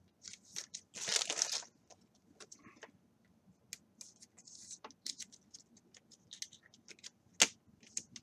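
Hands handling trading cards and a clear plastic card sleeve. There is a short rustling scrape about a second in, then scattered light clicks and slides as a card is slipped into the sleeve, and a sharp click near the end.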